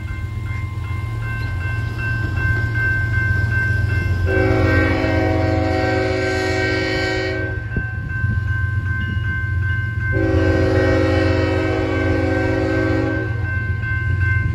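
Union Pacific locomotive horn sounding two long blasts of the grade-crossing signal, each about three seconds, a multi-note chord. Underneath, the crossing's warning bell rings steadily over a low rumble.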